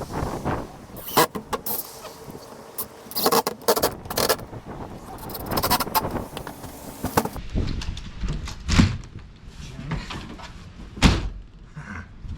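Irregular knocks and clatters, with a handful of sharper bangs in the second half.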